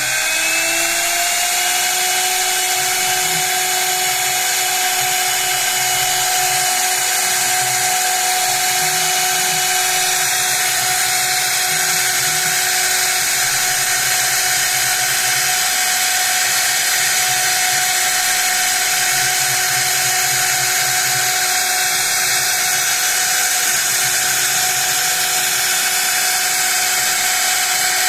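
High-speed CNC milling spindle finishing its spin-up in the first second or two, then running at a steady speed with a high whine and hiss. A faint low rumble comes and goes underneath.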